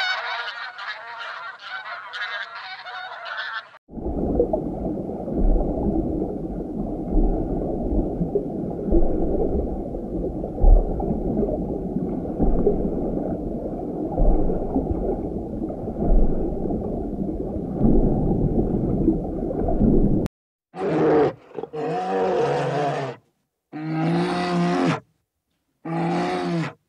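Honking waterfowl calls, then a steady low underwater rumble for about sixteen seconds, then about four separate deep growls from brown bears play-fighting in water.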